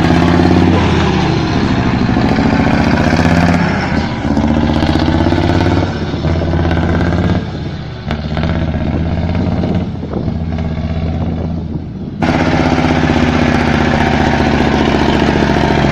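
Engine running loudly with a deep rumbling exhaust note, its pitch rising and falling as it is revved and eased off several times. Its level jumps back up suddenly about twelve seconds in.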